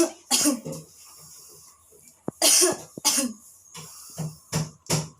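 A person giving deliberate coughs, two at a time, three times over: the coughs of a post-operative deep-breathing and coughing exercise.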